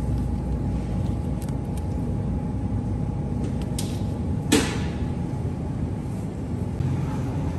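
Steady low hum of supermarket background noise by an open refrigerated case, with a faint steady tone over it. About four and a half seconds in there is one sharp knock as a plastic-wrapped sausage package is put back on the shelf.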